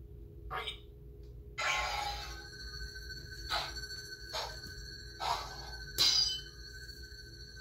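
YDD Ghost RGB lightsaber's soundboard: after a short blip, the blade ignites about one and a half seconds in with a burst of sound, then hums steadily. Four swing swooshes rise over the hum as the blade is swung.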